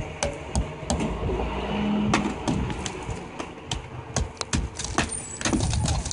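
Hammer striking a thick icicle at an ice dam: repeated sharp cracks of metal on ice at an irregular pace, a few a second.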